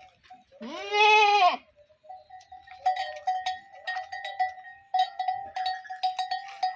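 A sheep gives one loud, drawn-out bleat about half a second in. From about two seconds in, livestock bells clink and ring steadily, with many quick metallic clicks.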